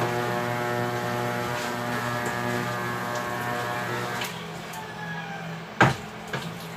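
Metal spoon stirring in a stainless steel pot, striking the pot with one loud clank near the end and a lighter one just after. Under it runs a steady droning hum with many even overtones that drops away about four seconds in.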